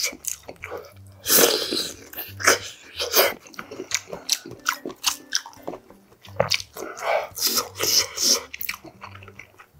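Close-miked chewing and crunching of mouthfuls of tuna kimchi stew, many short wet crunches and smacks in a row.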